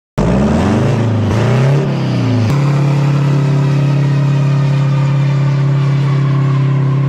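Big truck diesel engine, likely a Detroit Diesel, revving hard up and down during a burnout, then held at one steady high pitch, pinned at full revs with the drive tyres spinning.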